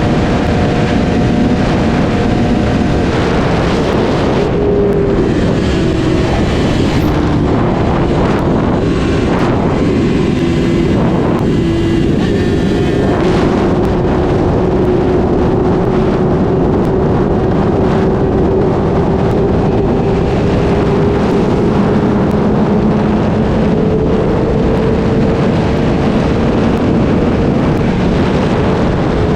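Sport motorcycle engine running at speed, heard from the bike, with steady wind rush on the microphone. The engine note dips and shifts a few times in the first half, then holds fairly steady and climbs slowly later on.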